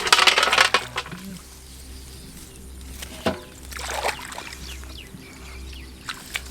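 Water splashing and sloshing as hands work in shallow water, loudest in the first second, then quieter with a few single splashes and knocks.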